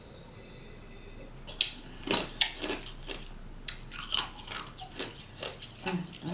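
A person crunching ice cubes with their teeth close to the microphone: a run of irregular, sharp crunches, starting about a second and a half in.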